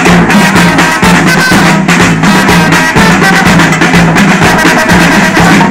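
Dominican street band playing loud, drum-driven music: a pair of stick-struck drums on a stand, a metal güira scraper and a shoulder-slung drum keep a dense, fast, even beat.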